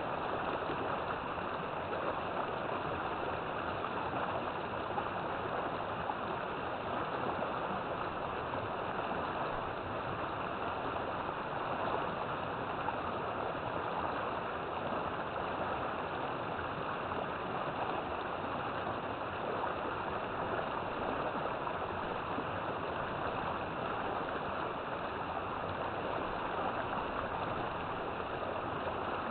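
River water flowing steadily, an even rushing and gurgling.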